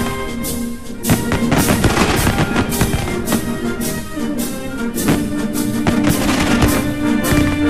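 Brass band music with drums, the drum and cymbal strikes falling about twice a second under sustained brass notes.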